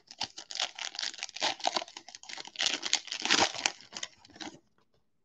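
A foil Topps baseball card pack wrapper being torn open and crinkled as the cards are pulled out: a dense, continuous crackle that stops about four and a half seconds in.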